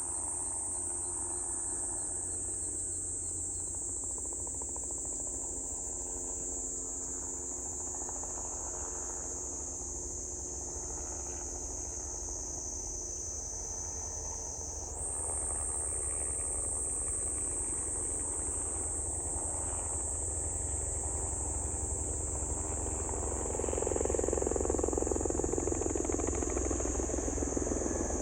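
A steady, high-pitched chorus of insects chirring, with a low rumble underneath. Near the end, a helicopter's pulsing rotor grows louder as it approaches.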